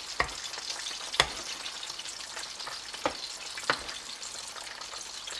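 Coconut sauce sizzling in a frying pan around two trout while a ladle spoons it over them, with steady hiss and four sharp knocks of the ladle against the pan.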